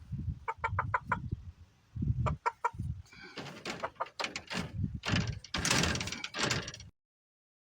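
Chickens clucking in short runs of quick, repeated notes, followed by a busier, noisier stretch of clucking; the sound cuts off abruptly shortly before the end.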